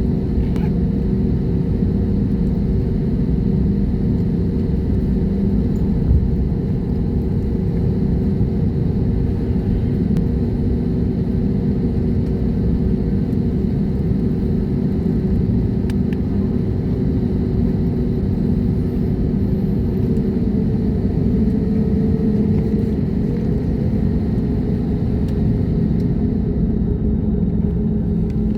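Airliner jet engines and airflow, a steady low rumble with a few steady humming tones running through it.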